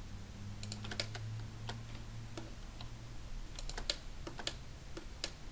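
Irregular clicking of a computer keyboard and mouse, a dozen or so separate clicks with a small flurry about three and a half seconds in, over a steady low hum.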